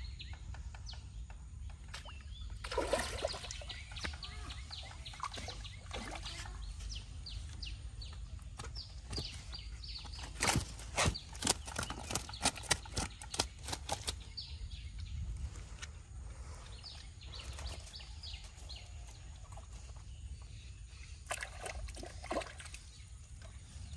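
Small birds chirping over and over above a low steady outdoor rumble. About halfway through comes a quick run of sharp slaps and rustles, a freshly caught fish flapping and being handled on the grassy bank.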